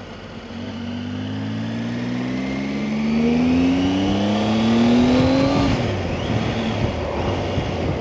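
Motorcycle engine accelerating hard, its pitch rising steadily for about five seconds and then dropping sharply near the end as it changes up a gear, with wind rush growing as speed builds.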